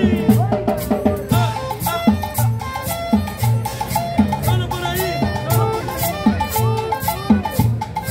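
Upbeat Latin dance music in a salsa style with a saxophone, percussion and a steady driving bass beat, played without a break.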